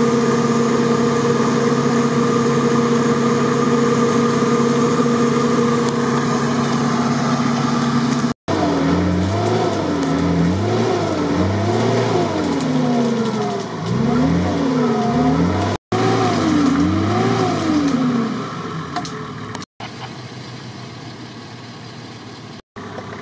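Nissan Patrol's engine revved hard while stuck in deep mud. At first it is held at steady high revs. After that it is revved up and down over and over as the truck tries to work free. Near the end it drops to a quieter engine sound.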